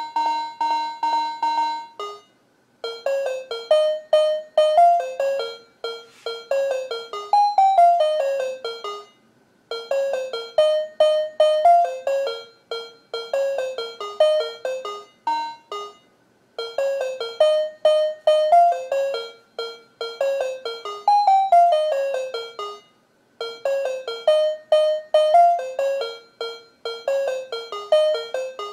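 Alarm tones from a talking alarm clock's small built-in speaker: a short repeated beep pattern, then about two seconds in an electronic tune of quick notes that repeats about every seven seconds with a short break between repeats.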